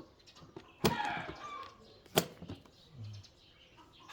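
Two sharp clicks about a second and a half apart as an old .22 rifle magazine, stiff from long disuse, is worked by hand. A chicken calls between them.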